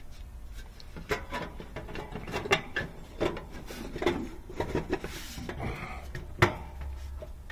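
Irregular knocks, clicks and scrapes of hands handling and fitting the sheet-metal service panel and wiring of an air-conditioning condenser unit, with one sharp click about six and a half seconds in.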